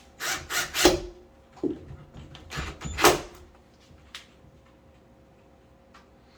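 Clicks and clunks of a metal door hinge and its screws being handled: a cluster of sharp knocks in the first three seconds and one more about four seconds in.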